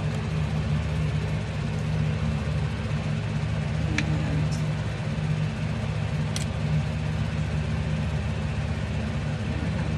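A steady low hum that does not change, with a few faint sharp clicks, one about four seconds in and another about six and a half seconds in.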